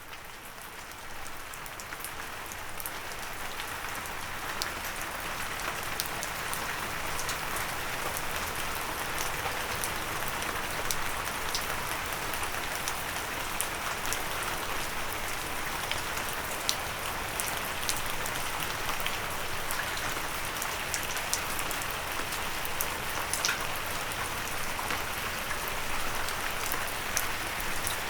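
Steady heavy rain with many sharp individual drops ticking on a windowsill. It fades in over the first second or two, then holds steady.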